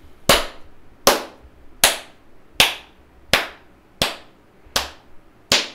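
One person's hands clapping slowly and deliberately: eight sharp claps, evenly spaced about three-quarters of a second apart. It is a sarcastic slow clap of mock congratulation.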